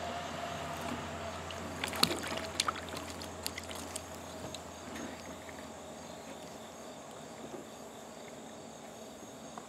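Water sloshing and splashing in a plastic tub as a skinned squirrel carcass is swished around to rinse off the blood, with a few sharp splashes in the first half before it fades to a low background.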